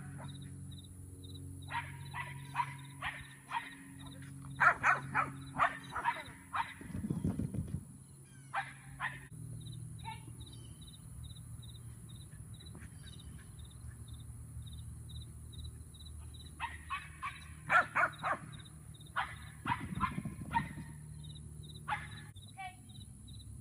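Small dog barking excitedly in two runs of rapid, repeated barks, a few barks a second, with a pause between them. A steady pulsing chirp of insects goes on underneath.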